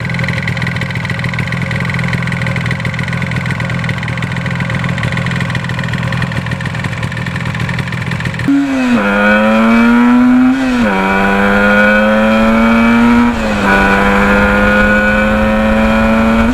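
Yamaha RD400's two-stroke twin engine under way, running steadily at first. About halfway in it pulls up through the gears, its pitch climbing in each gear and dropping back at each shift, about every three seconds.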